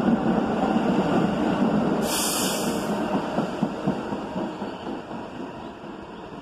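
New York City subway N train departing and running away down the track, its wheels and motors fading steadily as the last car recedes. A one-second burst of high hiss cuts in about two seconds in.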